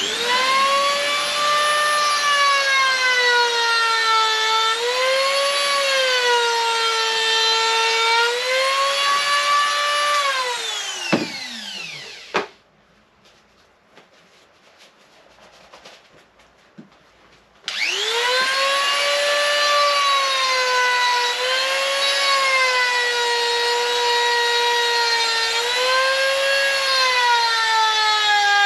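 Small corded high-speed power carving tool whining as it grinds wood, its pitch dipping and recovering as it bites into the carving. It spins down about eleven seconds in and is off for about five seconds. It starts again with a rising whine about eighteen seconds in and runs on.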